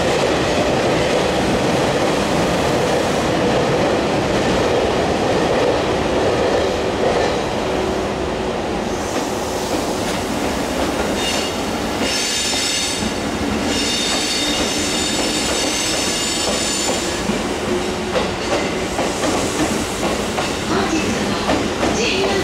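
205-series railcars rolling slowly past on a delivery run, wheels clacking over the rail joints. A high metallic squeal of several tones at once sets in about eleven seconds in and dies away about six seconds later.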